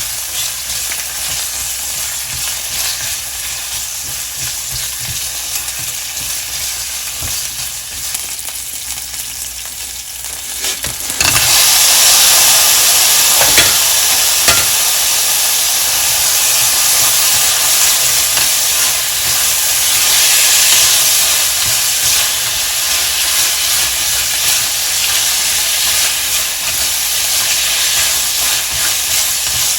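Food sizzling as it fries in a pan. About eleven seconds in the sizzle suddenly gets louder and brighter, as when more food goes into the hot pan, with a few knocks of a utensil against the pan soon after.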